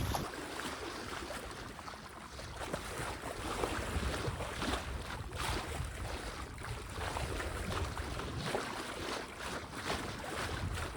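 Malo 42 sailboat sailing upwind in a fresh breeze: water rushing and splashing irregularly along the hull, with some wind on the microphone.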